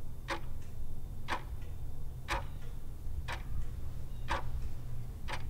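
Clock ticking steadily, about once a second, over a low steady hum.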